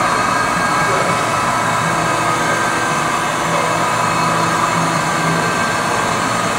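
Jones & Shipman Micromatic tool and cutter grinder running with its wheel-head spindle spinning, driven by its 3/4 HP three-phase motor: a steady hum with a higher whine.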